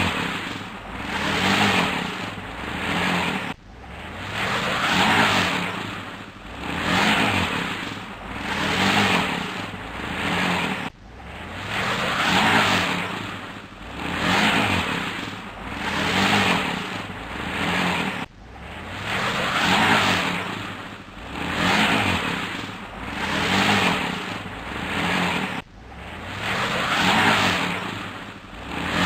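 Truck engine revving in repeated surges, about one every two seconds, as it tries to pull free while stuck in mud. The same short recording loops, breaking off abruptly about every seven seconds.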